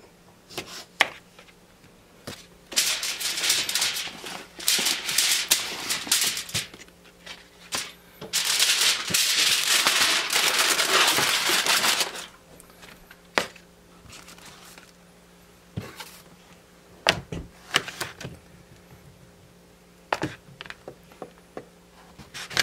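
Two spells of loud rustling or crinkling, each a few seconds long, with scattered clicks and knocks of objects being handled while food is prepared.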